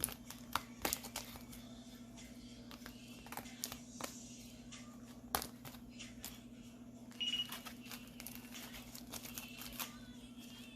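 Scattered clicks and light crinkling from small plastic nail-art packets being handled, over a steady low hum, with a brief high squeak about seven seconds in.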